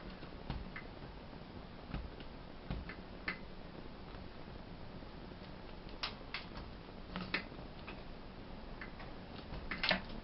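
Birds pecking and tapping at a bird feeder: irregular sharp clicks and taps, unevenly spaced, with a few louder taps close together near the end.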